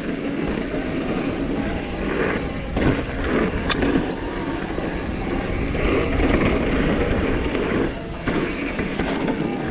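Mountain bike rolling over a dirt trail: tyre noise and rattling of the bike over rough ground, with wind buffeting the camera microphone and a sharp click about four seconds in.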